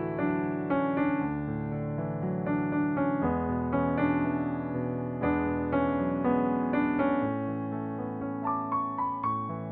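Background music: a gentle solo piano piece, chords struck about once a second, with a few quick higher notes near the end.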